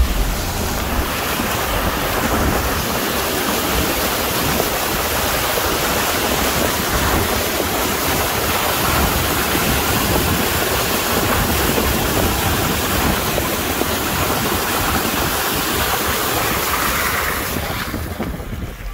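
Vehicle tyres ploughing through a flooded dirt track, churning and splashing muddy water against the wheel and body in a steady rushing wash that fades near the end.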